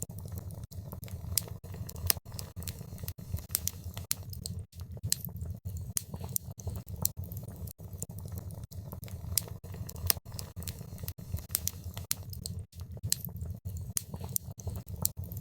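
Wood fire burning in a fireplace: a steady low rumble of the flames with frequent sharp crackles and pops, irregular, several a second.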